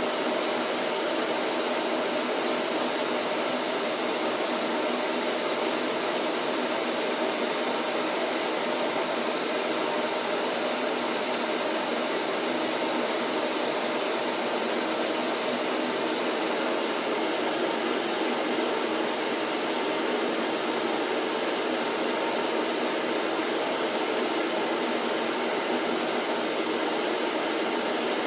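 Vacuum cleaner motor running steadily, a continuous even whooshing drone with no change in pitch or level.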